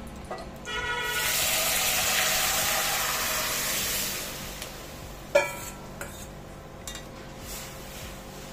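Boiled moong dal sizzling in hot mustard oil tempered with cumin, dried red chilli and curry leaves in a kadai. The loud hiss starts about a second in and dies away over the next few seconds. A single metal clank of a utensil against the pan comes near the middle, then a few faint clicks.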